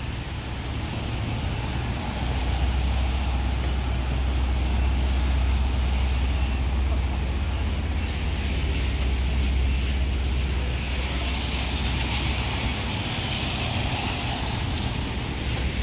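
Road traffic passing on a wet city street: a steady low rumble that swells over the first few seconds, with tyre hiss rising again near the end.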